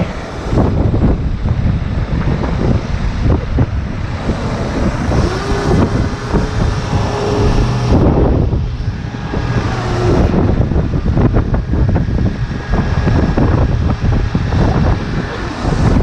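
Strong wind gusting over the microphone on top of the steady run of a Peterbilt 389 rotator wrecker's diesel engine. A steady tone rises out of it between about five and ten seconds in.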